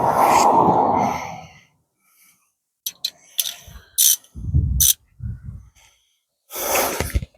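A heavy breath out, then a few sharp clicks and knocks of hand tools on metal with some dull low thuds, and another breath near the end: someone straining while working a stuck bolt.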